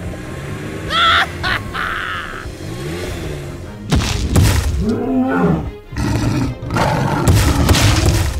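Background music with a dinosaur roar sound effect about halfway through, and heavy thuds like stomping footsteps near the end.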